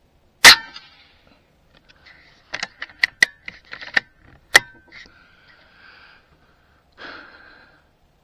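A single shot from a Vulcan 3 air rifle fitted with a muzzle brake: one sharp crack about half a second in, with a brief ring. It is followed by a string of clicks and clacks about two to five seconds in, as the action is worked for the next shot.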